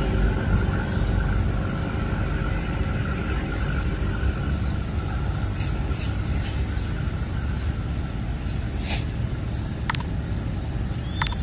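Amazon riverboat's diesel engines running with a steady low rumble, a faint steady whine fading out about halfway through. A few short sharp clicks near the end.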